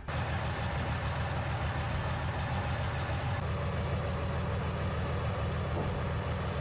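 Heavy vehicle's engine running steadily, low-pitched and even.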